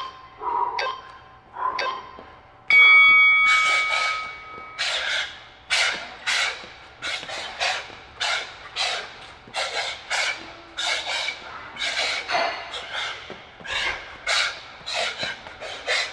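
Heavy panting, then an interval timer's steady electronic beep lasting about two seconds, marking the start of a work round. A boxer then shadowboxes, with a sharp hissing exhale on each punch, about two a second.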